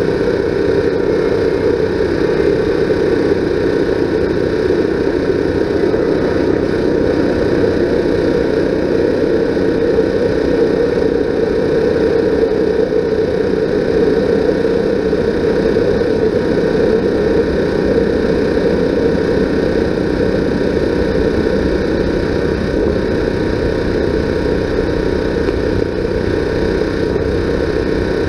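A steady, unchanging mechanical drone with a constant hum.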